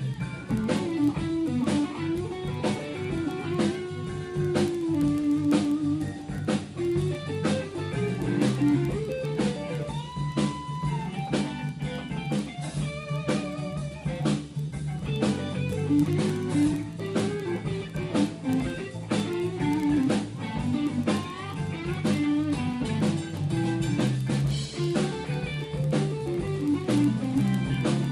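Live band playing an instrumental blues-rock passage: an electric guitar plays single-note lead lines with bent notes over a steady drum beat and bass.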